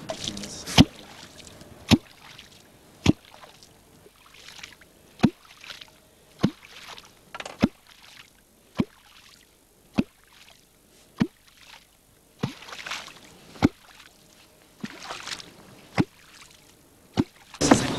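Wooden catfish clonk (clonc) striking the river surface in a steady rhythm, a sharp stroke a little under once a second (about fifteen in all), each followed by a brief splash. The strokes carry down under the boat and are meant to lift catfish off the bottom from a few metres around.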